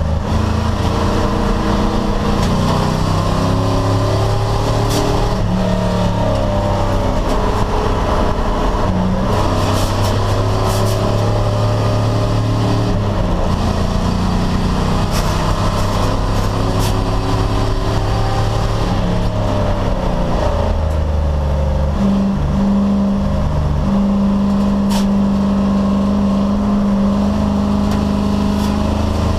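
Race car engine running hard at racing speed, its note climbing and then dropping in steps again and again as it pulls through the gears and eases off for corners.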